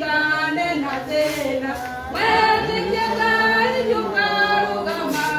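A woman singing a hymn through a microphone in slow, long-held notes, with other voices singing along.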